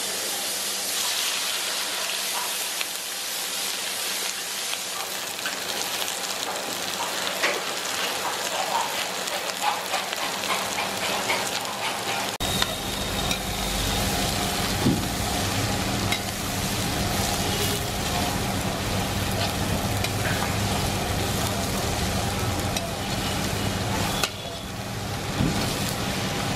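Chopped onions and green chillies sizzling in hot oil in a large kadai, stirred and scraped with a metal perforated ladle, with scattered clicks from the ladle. About halfway through, a low steady rumble joins the sizzle.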